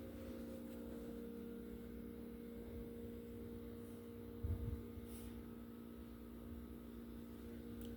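Steady electrical hum, with a brief low bump about halfway through.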